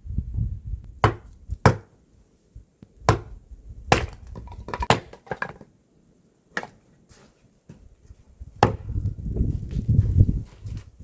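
Wood being chopped: about seven sharp blows at irregular intervals, roughly one to two seconds apart, with a low rumble at the start and again near the end.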